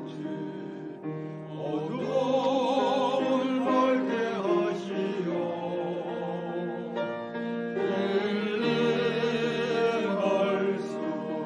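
Church choir singing a hymn with vibrato over instrumental accompaniment. The singing swells louder about two seconds in, eases off, and swells again near eight seconds.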